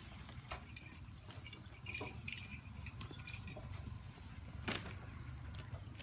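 Goats feeding on a heap of fresh napier grass: stalks and leaves rustling, with scattered crunching and clicks as they pull and chew, and one sharper click about three-quarters of the way through.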